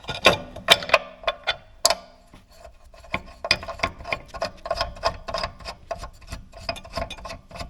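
A quick run of sharp metallic clicks and ticks, several a second with a light ring, as the cast-iron work table is fastened onto a benchtop belt and disc sander.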